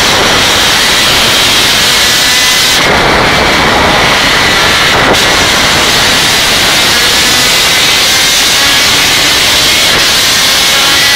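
V6 engine of a Top Race V6 touring car heard from inside the cockpit at racing speed, loud and mixed with heavy wind and road noise. Faint rising engine tones run through it, and the noise eases for about two seconds around three seconds in before picking up again.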